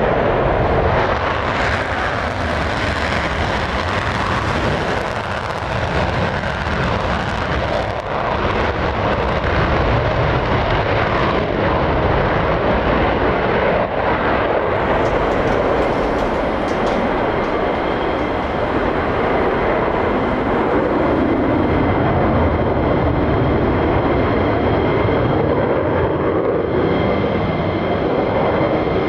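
Military fighter jet engines (F-35 and F-15) running loud and steady as the jets roll and take off. In the second half a steady high-pitched engine whine sits over the jet noise.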